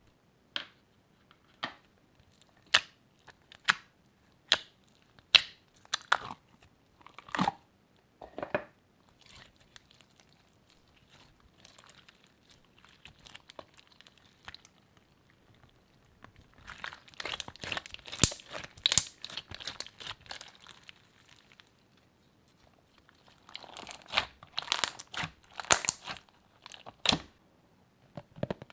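Crunchy slime being squished and folded by hand: a string of separate sharp pops and clicks, then two longer stretches of dense crackling.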